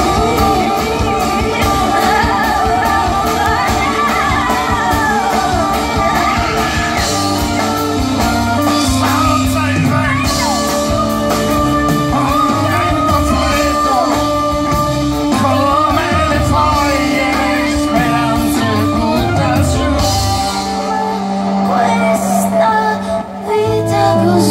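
Live band with a woman singing over double bass, drum kit and keyboard. About twenty seconds in the drums and bass drop out, leaving held notes, and the full band comes back in just before the end.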